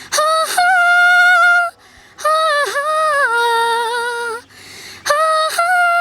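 A young woman singing a Nepali film song unaccompanied, in three long held high notes with slight wavers and short breaths between them.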